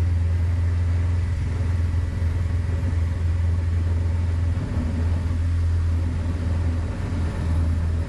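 A loud, steady low machine hum, like a motor running, with no change in pitch throughout.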